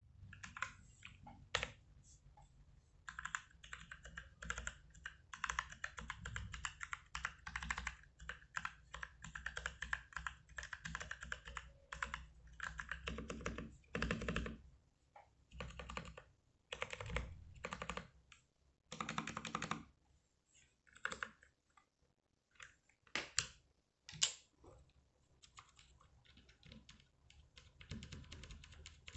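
Typing on a Gamen Titan Elite mechanical keyboard whose Outemu blue switches have been modified with the jailhouse mod: runs of rapid keystrokes broken by short pauses, with a few louder single key presses.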